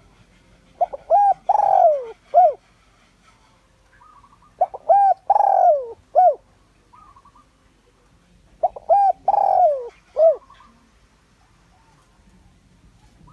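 Spotted dove cooing: three phrases about four seconds apart, each made of a few short notes, one long falling coo and a short closing note.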